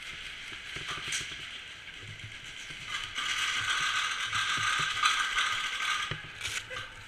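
Airsoft gun firing in long full-auto bursts, its gearbox running steadily, louder from about three seconds in until about six seconds.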